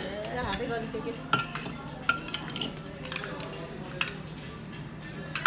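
Metal spoon scraping and clinking against a small metal karahi bowl as curry is scooped out, with about four sharp clinks.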